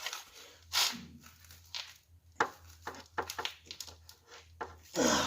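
Rubber fuel hose being wiggled and twisted onto a fuel-line fitting: irregular short rubbing, scraping and crackling noises, with a louder one about five seconds in.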